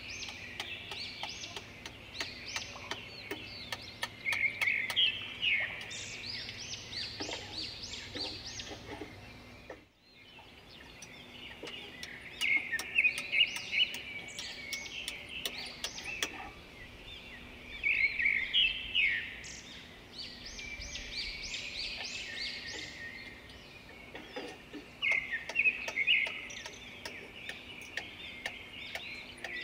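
Woodland birds singing, with bursts of quick chirping phrases every few seconds. Many sharp ticks fall in the first third, and the sound breaks off briefly about a third of the way in.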